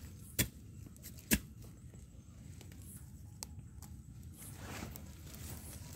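Termite mushrooms being picked by hand from soil and dry leaf litter: faint rustling and handling, with two sharp clicks within the first second and a half.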